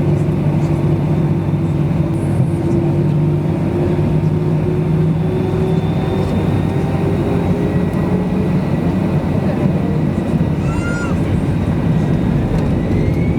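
Airbus A320's CFM56 jet engines and airflow heard inside the cabin: a loud, steady noise with a low hum that slowly rises in pitch. A brief high gliding sound comes near the end.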